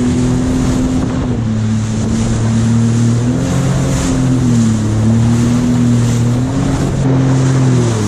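Sea-Doo Fish Pro jet ski running at speed, its engine a steady hum that dips and rises slightly in pitch a few times, over the rush of spray and water along the hull.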